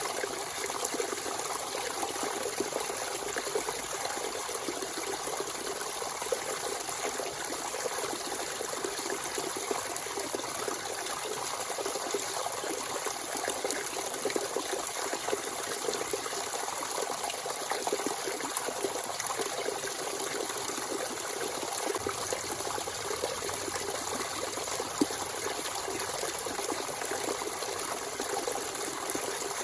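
Natural spring water running and trickling freely in a steady flow, with small splashy flickers.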